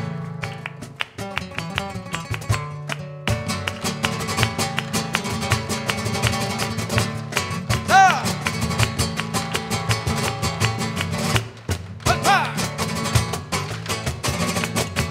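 Flamenco alegrías played live, with no singing: flamenco guitar strumming over a fast rhythm of hand clapping (palmas) and cajón. A couple of short vocal cries come about eight and twelve seconds in.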